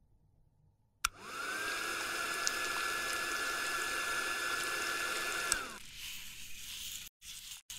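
Small electric motor switched on with a click, spinning up within a fraction of a second to a steady whine. It runs for about four and a half seconds, then clicks off and winds down, followed by irregular rustling.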